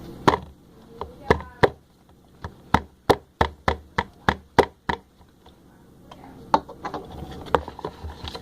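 A utensil knocking against a bowl while stirring slime mixture: a series of sharp taps, coming quickest, about three or four a second, in the middle.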